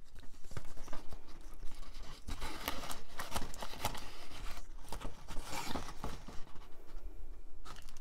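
Packaging being handled in a cardboard box: rustling and scratching with many small clicks, busiest from about two seconds in.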